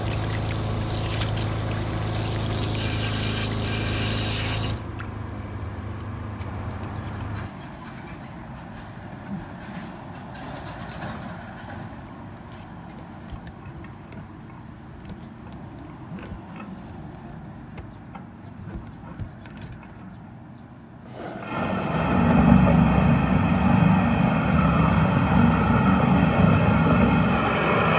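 High-pressure drain jetter's engine running steadily with water rushing through the drain. It drops away after about five seconds to a quieter stretch of flowing water, and the machine comes back loud about three-quarters of the way through.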